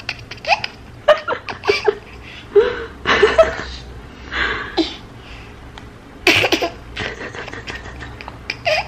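A baby girl laughing in repeated bursts of giggles, with a loud outburst about six seconds in. It is the giggling of an overtired baby who laughs for no reason near bedtime.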